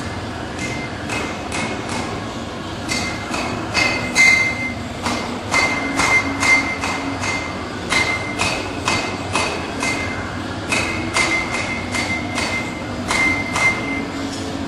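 Blacksmith's hammer striking metal on an anvil in runs of several blows with short pauses between them; each blow rings with a clear metallic tone.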